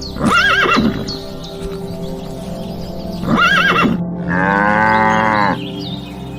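Animal calls over steady background music: two short, wavering high calls about three seconds apart, then a longer, steadier and lower call lasting about a second.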